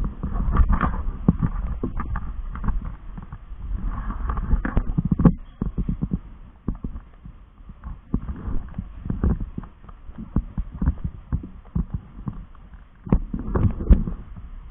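Muffled, irregular low thumps and rumbling from a camera being handled and carried at walking pace, easing off for several seconds in the middle and picking up again near the end.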